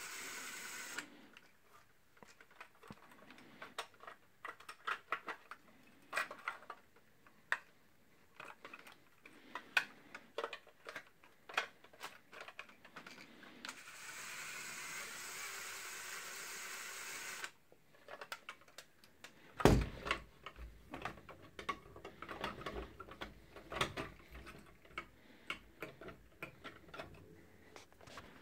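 Irregular plastic clicks and rattles of a custom Lego toy minigun being handled and worked, with a heavy thump about two-thirds of the way through. A steady hiss sits under the first second and again for a few seconds in the middle.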